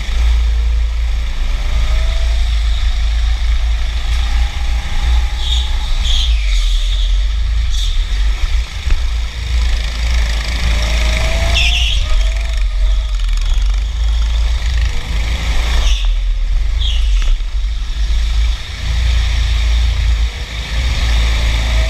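Go-kart at speed, heard from onboard: heavy wind rumble on the microphone, with the kart's motor rising in pitch several times along the straights. There are short high squeals, likely the tyres scrubbing in corners, around six seconds in, about twelve seconds in and again near seventeen seconds.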